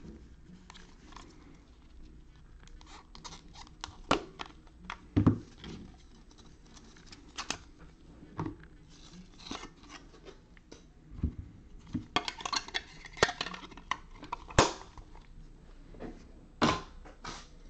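Handling and opening a sealed trading-card box: scattered taps and clicks of cardboard and plastic, with a stretch of wrapper crinkling and tearing about twelve seconds in.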